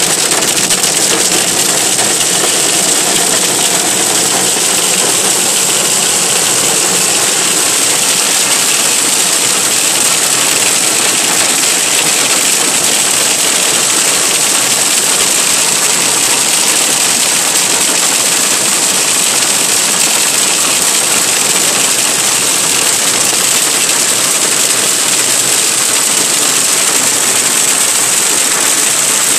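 Hail pelting a car's roof and windshield, heard from inside the cabin as a loud, dense and steady din.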